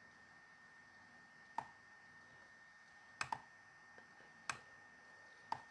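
Computer mouse clicks: five short sharp clicks spread over a few seconds, two of them in quick succession, over faint room noise.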